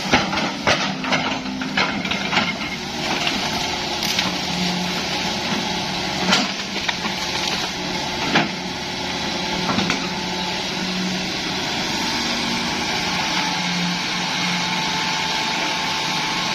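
Hitachi hydraulic excavator's diesel engine running steadily while bamboo cracks and snaps under the machine, with a cluster of sharp cracks in the first couple of seconds and single louder snaps about six and eight seconds in.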